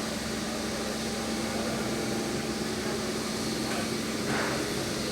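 Steam locomotive 3801 on the turntable, giving off a steady hiss over a low, even hum.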